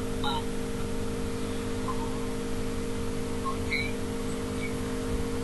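Steady low hum with an even hiss.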